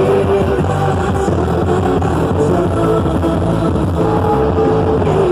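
Loud amplified music with a steady bass beat and sustained melody lines, and some singing, played for a quadrilha junina dance.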